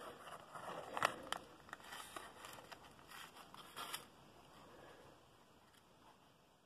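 Faint crinkling and rustling of a small plastic baggie being handled, with a few small clicks, dying down about four seconds in.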